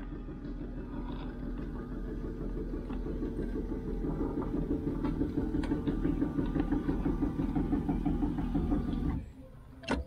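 Electric power-seat motor running steadily as it drives the seat back along its track, stopping suddenly about nine seconds in.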